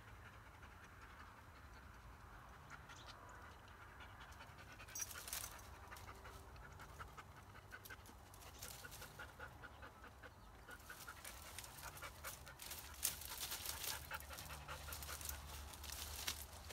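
Kars shepherd dog panting as it goes at a tree stump inside dry brush, with dry twigs and branches rustling and crackling around it. The rustling is heaviest in the second half.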